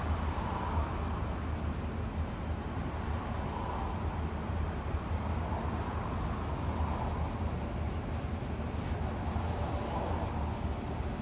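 Bus travelling at a steady speed: an even low engine and road rumble, with a few faint brief rattles now and then.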